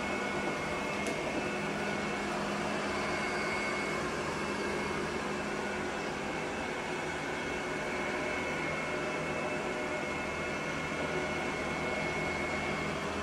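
Robot vacuum cleaner running: a steady motor whir with a faint thin whine over it.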